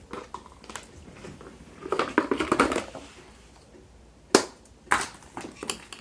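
Plastic toy and packaging being handled: a burst of crinkling and crackling about two seconds in, then a few sharp separate clicks near the end.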